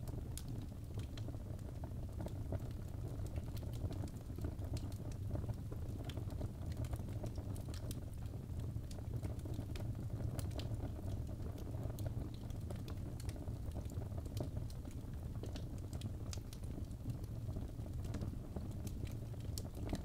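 Fireplace fire crackling: irregular sharp pops and snaps scattered over a steady low rumble.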